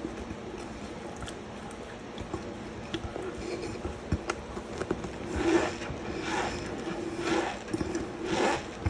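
Hands squeezing and crunching a heap of loose cornstarch, with small scattered crackles at first, then louder crunching squeezes about once a second from about five seconds in.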